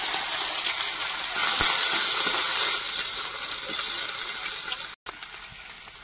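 Chopped onions sizzling in hot oil in a kadai: a steady, dense hiss that slowly eases off, dropping out for an instant near the end and coming back quieter.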